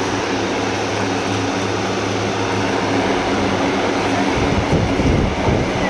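Steady background noise of a busy market, with a low mechanical hum that stops about four seconds in and gives way to low rumbling.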